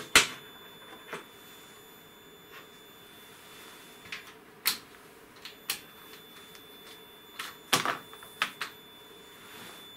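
Scattered clicks and knocks of test leads, probes and equipment being handled on an electronics workbench. The loudest comes just at the start, a quick cluster follows near the end, and a faint steady high tone runs underneath.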